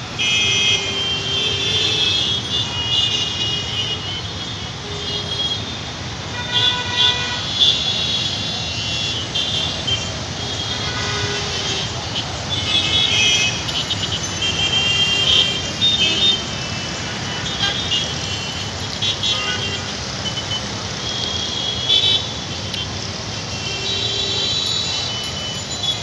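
Street traffic of cars and CNG auto-rickshaws over a steady engine rumble, with horns honking again and again: short toots and longer blasts, several overlapping at times.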